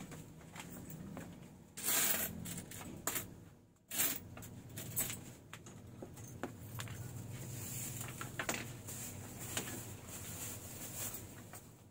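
Scattered small clicks and rustles of things being handled at a shop counter, over a steady low hum, with louder rustling bursts about two and four seconds in.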